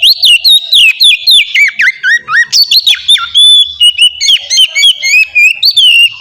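Oriental magpie-robin (kacer) singing loudly in a rapid, unbroken run of whistled notes and swooping glides, in the open, full-throated 'ngeplong' style.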